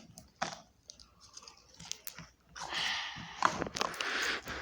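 Slime being squeezed and worked in the hands, crunching with a run of sharp clicks and crackles that grows denser from about halfway.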